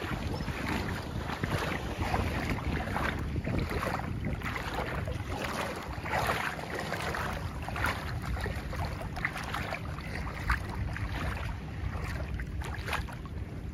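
Wind buffeting the microphone, a steady low rumble, over choppy shallow seawater lapping and splashing in small irregular spurts.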